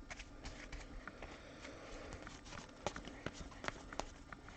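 Faint, irregular soft clicks and taps of trading cards being flipped and slid through by hand, about three a second.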